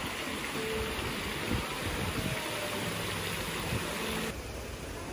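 Splash fountain running: water raining from an overhead ring and jets into a shallow basin, a steady hiss of falling water that cuts off suddenly about four seconds in.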